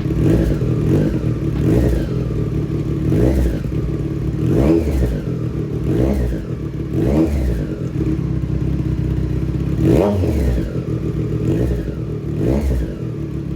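2018 Triumph Street Triple's inline three-cylinder engine, breathing through a Racefit Growler X slip-on exhaust with the stock headers and catalytic converter, idling with about nine quick throttle blips that each rise and fall in pitch. It sounds loud.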